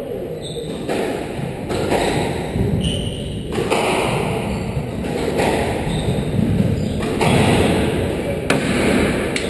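Squash rally: a squash ball hit back and forth by rackets and thudding off the court walls, with sharp impacts at uneven spacing about once a second.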